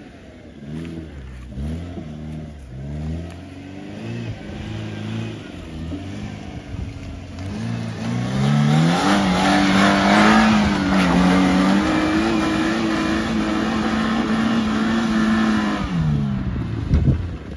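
Suzuki Jimny engine revving off-road, its pitch rising and falling in short pulls, then climbing and held at steady higher revs for several seconds under a loud rushing of tyres and brush, before it eases off near the end.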